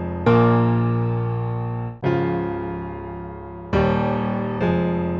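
A chord progression on a programmed keyboard instrument, played back from a DAW. Four sustained chords are struck about 0.3, 2.0, 3.7 and 4.6 s in, each fading slowly. The notes are nudged slightly off the grid to give a human timing imperfection.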